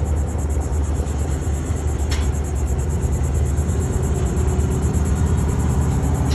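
Porsche Cayman driving slowly past at low speed, its engine a steady low rumble.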